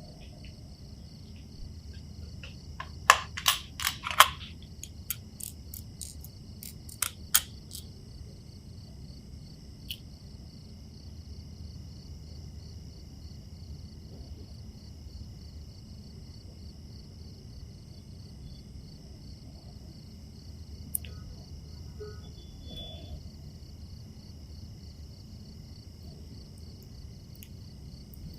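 Small sharp clicks of watchmaker's tools on metal watch parts: a quick cluster about three to four seconds in, a few more around seven seconds, then single clicks further on. Under them runs a steady high, finely pulsing trill.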